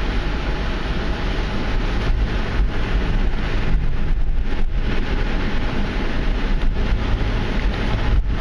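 A car driving slowly along a sandy beach track, its steady low rumble mixed with wind buffeting the microphone.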